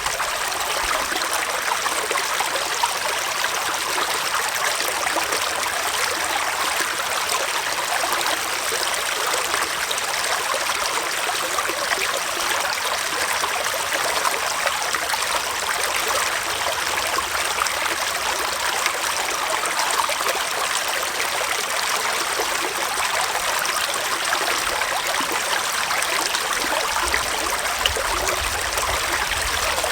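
Small forest stream flowing steadily, water trickling and gurgling over stones.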